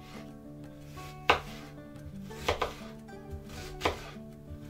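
Chef's knife chopping a peeled onion on a wooden cutting board: a handful of sharp knocks at uneven intervals, the loudest a little over a second in and a quick double halfway through. Soft background music runs beneath.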